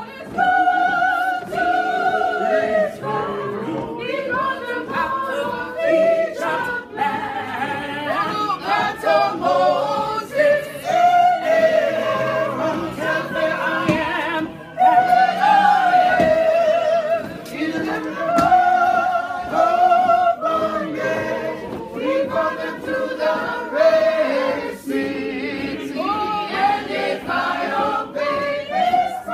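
A church choir singing together, many voices in held notes and phrases of a few seconds each.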